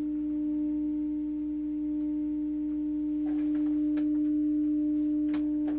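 Steady, unwavering test tone, a single low-mid pitch, from the audio of the VG91 generator's test signal as the 1949 Admiral 24C15 television receives it. A few light clicks come near the end.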